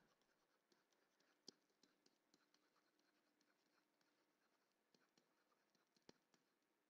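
Near silence, with the faint ticks and scratches of a stylus writing on a tablet screen, including a small tap about a second and a half in and another near the end.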